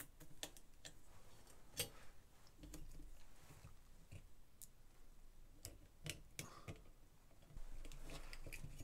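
Faint, scattered clicks and taps of plastic cable connectors and a circuit board being handled as cables are plugged onto an iMac G3's CRT neck board. There is one sharper click about two seconds in and a quick cluster of clicks around six seconds.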